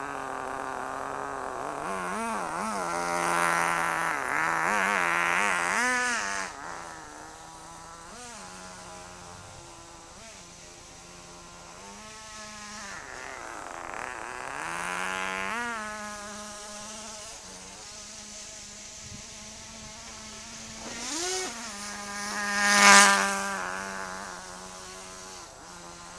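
Nitro glow engine of a 1/10 scale Himoto RC truck running, its high-pitched buzz rising and falling again and again as the throttle is worked. It is loudest during the first six seconds and peaks sharply as the truck passes close by about 23 seconds in.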